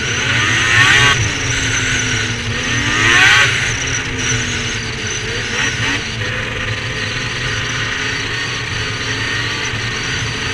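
Ski-Doo snowmobile's two-stroke engine heard from aboard the sled, revving up and easing off twice in the first few seconds, once more more briefly, then running steadily at cruising speed.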